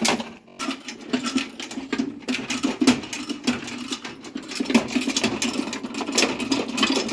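Continuous rapid rattling and clicking of metal.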